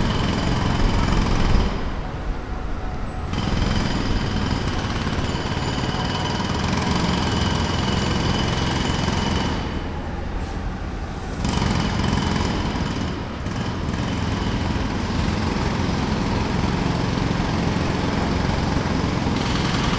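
Jackhammer hammering in rapid, continuous blows on a construction site, breaking up pavement. It stops briefly twice, about two seconds in and about ten seconds in, while a low rumble carries on underneath.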